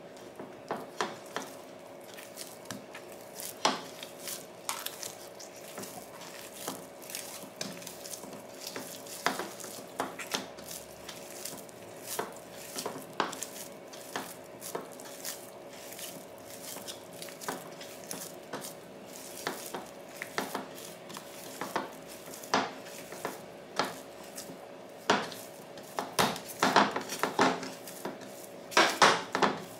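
Hands kneading bread dough in a floured wooden bowl: irregular soft knocks and squishes as the dough is pressed and folded against the wood, getting busier and louder near the end. A steady hum runs underneath.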